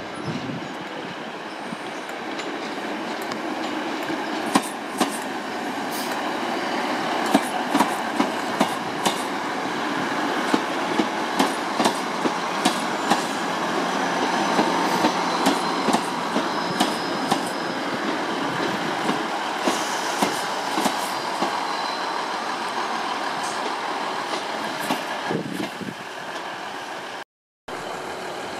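Diesel multiple unit approaching and running past close by, its engines and wheels giving a steady rumble that builds as it nears. As it passes, its wheels click rhythmically over the track at about two a second. The sound breaks off abruptly near the end.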